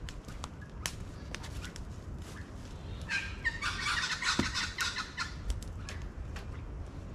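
Campfire crackling with scattered sharp pops, and a bird calling loudly in a harsh, chattering burst of about two seconds near the middle.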